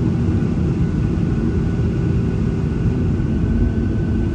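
Cabin noise inside a Boeing 737-900ER taxiing: its CFM56-7B jet engines at low power give a steady low rumble, with a thin steady whine above it.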